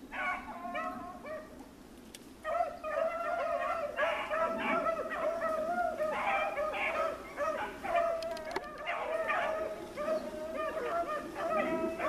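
A pack of beagles baying on a rabbit's trail. A few bays come at the start, then a lull of about a second, then from about two and a half seconds in a steady chorus of many overlapping bays.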